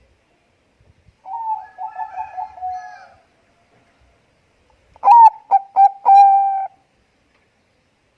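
Zebra dove (Bangkok perkutut) cooing in two phrases: first a softer run of quick rolling coos, then a louder phrase of three clipped notes running into a long held coo.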